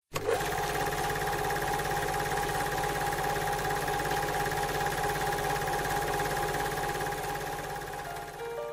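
Film projector sound effect: a movie projector running with a fast, even clatter and a steady whine over hiss, dipping slightly near the end.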